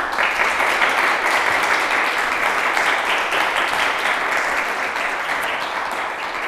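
Small audience applauding, starting suddenly and easing off slightly toward the end.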